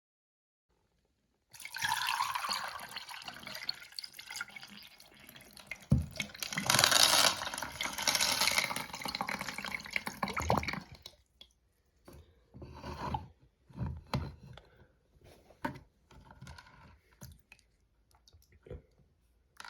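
Miniature Concord toilet flushing a load of M&M's. About a second and a half in, water rushes through the bowl, builds to its loudest in the middle, then dies away into scattered gurgles and drips as the tank and bowl settle.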